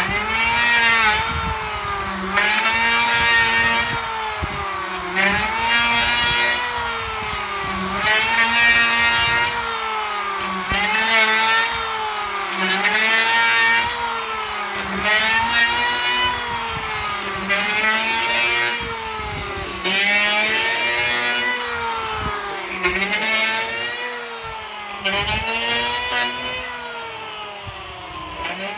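Electric hand planer running with repeated passes along a board, its motor pitch rising and falling in a regular cycle about every two and a half seconds as it goes in and out of the cut.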